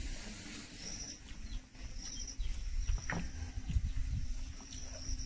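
Close-up eating sounds: mouth and chewing noises and hand-on-plate handling, with a short high chirp repeating about once a second in the background.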